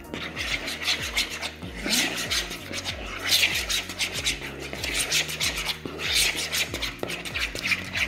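A spoon scraping and stirring a thick creamy mixture of crème fraîche and soft cheese around a mixing bowl, in repeated strokes about once a second, over soft background music.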